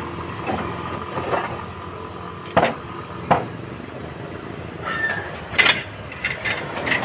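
Scrap metal being handled: a few sharp knocks and clinks, the loudest about two and a half and three and a half seconds in, with more near the end, over a steady background hum.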